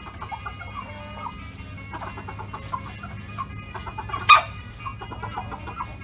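A flock of chickens clucking in short, scattered calls, with one louder, sharper call about four seconds in.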